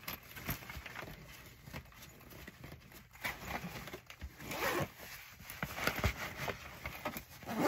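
Zipper on a fabric bag being pulled in several short runs, with rustling and light knocks of supplies shifted inside the bag.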